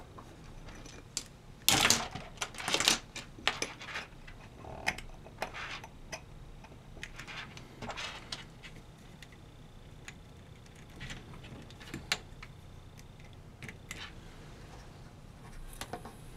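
Metal alligator clips and banana-plug test leads clicking and rattling as they are unclipped, moved and clipped back on, with a cluster of sharper clicks about two seconds in and lighter scattered clicks after.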